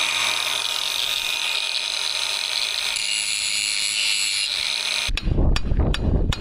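Power grinder grinding metal for about five seconds, a steady high hiss. Then the grinding stops and hammer blows on steel start, several quick strikes near the end.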